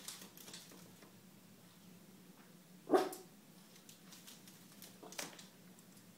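A dog gives one short yelp about three seconds in, over a low steady hum.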